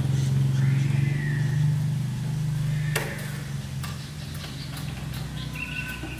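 A steady low mechanical hum that drops away about three seconds in, with a couple of sharp metallic clicks about three and four seconds in.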